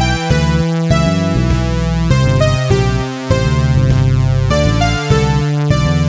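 Electronic synthesizer music: sustained synth chords that change every second or so over a steady repeating bass line.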